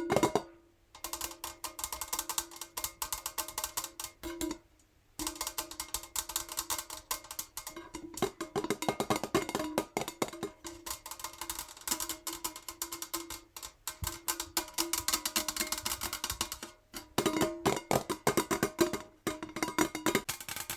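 Fingernails tapping rapidly on a metal jar: a dense patter of clicks with the jar ringing at a few steady pitches. The tapping breaks off briefly about a second in and again at about four and a half seconds.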